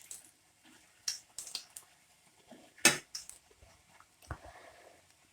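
Kitchen utensils being handled: scattered light clicks and taps, with one sharper clink about three seconds in.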